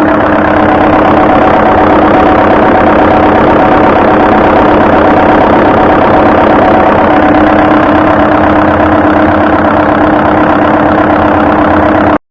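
Loud machinery running steadily with a constant hum through its noise, cutting off suddenly near the end.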